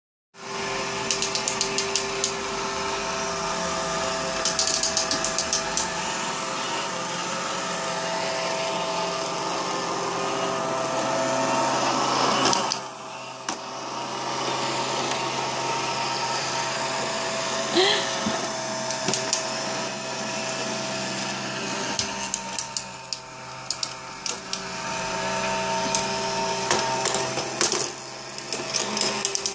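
Robot vacuum cleaner running: a steady motor hum with a whine and a few steady tones. Bursts of sharp clicking and rattling come now and then, and the sound drops in level for a moment about 13 seconds in.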